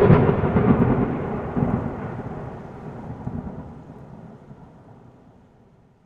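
Thunder-like boom sound effect from a logo intro: it starts suddenly, then a rumbling tail fades away over about six seconds.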